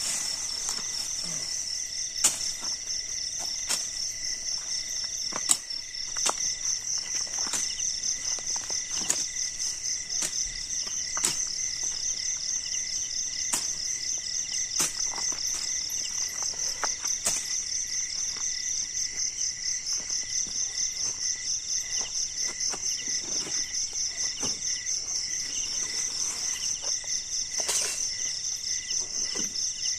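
Night insects trilling steadily in rapid, even pulses at a high pitch, with a fainter lower tone beneath. Irregular sharp clicks and rustles from pulling weeds and handling camping gear cut across it.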